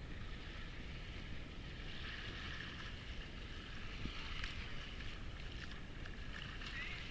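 Seashore ambience at the Baltic: wind rumbling on the microphone over a steady hiss of surf, with a few faint ticks.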